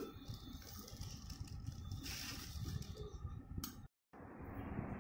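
Clear plastic bag of ice rustling and crinkling as salt is added to it, with small clicks and a brief hiss about two seconds in. After a short break in the sound near the end, the bag crinkles again as it is gathered to be tied.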